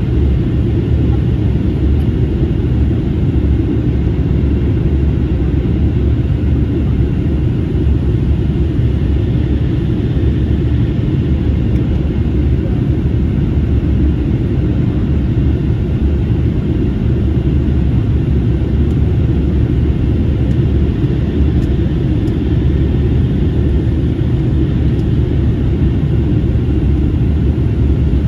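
Steady low rumble of cabin noise inside an Airbus A321neo in flight, the engines and rushing airflow blending into one even drone.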